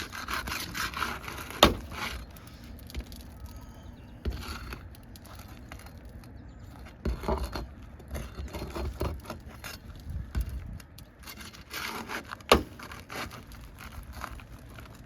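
A tool scraping and prying at a roofing nail under asphalt shingles, with irregular scraping throughout. Two sharp clicks, one about a second and a half in and one near the end, are the loudest sounds. The nail is buried under the shingle and is ripping through it as it is worked loose.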